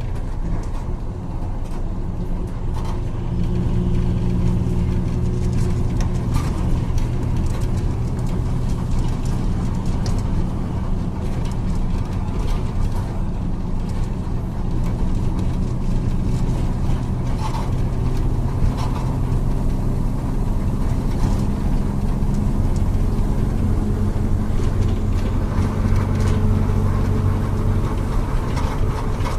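Diesel engine of a Volkswagen 17.230 OD bus running steadily, its engine note stepping up and down in pitch a few times as it is driven, with a few short rattles and clicks.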